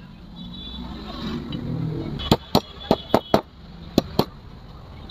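A quick run of sharp knocks, about seven in two seconds, over a low steady rumble that swells during the first two seconds.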